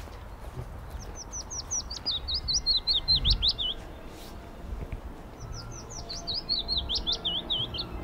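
Eurasian blackcap singing: two quick warbling phrases of rapid high notes, each about two and a half seconds long, the first starting about a second in and the second just past halfway.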